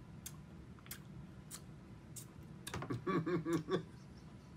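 Quiet sipping of a drink: a handful of small sharp clicks, then a short wordless murmur from a man's voice about three seconds in.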